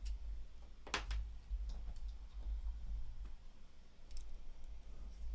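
A few light clicks and taps of small parts and tools being handled while a paintball marker is taken apart, the sharpest about a second in, over a low handling rumble.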